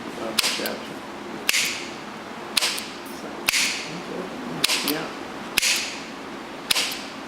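Electric door lock solenoid from a 1972 Rolls-Royce Silver Shadow being worked by hand on the bench. Its cleaned shaft is pushed up and dropped about once a second, each time a sharp click followed by a short sliding rasp. Falling freely under its own weight is the sign that the corrosion-caused sticking is cured.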